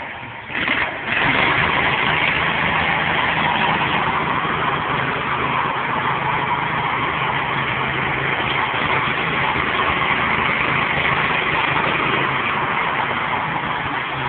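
Ride-on power trowel's engine running just after starting: a short surge about a second in, then it settles into a steady run while the machine's rotors trowel the concrete floor.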